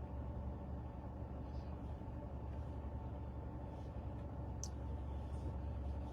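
Steady low background hum, with one faint click about four and a half seconds in.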